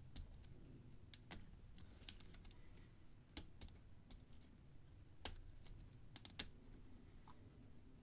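Faint, irregular small metallic clicks of a hook pick and tension wrench working the pin tumblers of a brass padlock, picking the pins one at a time.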